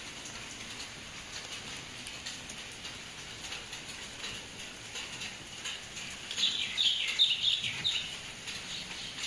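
Small birds chirping in the background, with a louder run of quick chirps about six and a half seconds in.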